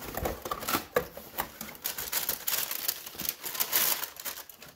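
A cardboard shoebox being opened and the boots unpacked: irregular rustling and crinkling, with scattered small knocks.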